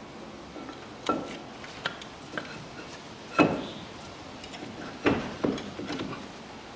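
Metal clunks and knocks as a Land Rover Defender front brake caliper is set onto the brake disc and hub, with some six or seven sharp knocks that ring briefly. The loudest comes about three and a half seconds in.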